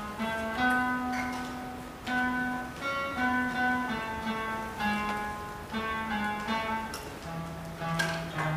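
Instrumental introduction of a worship song played by a church band with acoustic guitar: a melody in held notes over a low bass note, the bass dropping lower about seven seconds in.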